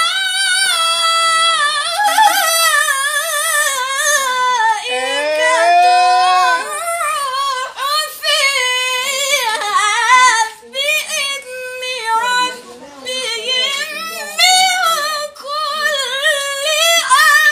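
A boy's high-pitched voice chanting Quran recitation (tajweed) in long, ornamented melodic phrases, the held notes wavering up and down, with short breaks between phrases.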